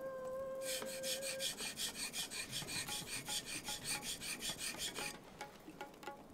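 Steel leather knife blade rubbed back and forth on an 8000-grit whetstone, in quick, even strokes about four a second. The strokes start about a second in and stop about five seconds in.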